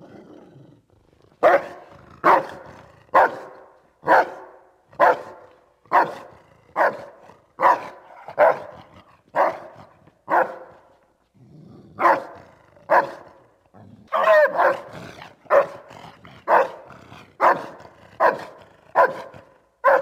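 Doberman pinscher barking: a low growl first, then a steady run of short, deep barks about once a second, with a brief break about halfway.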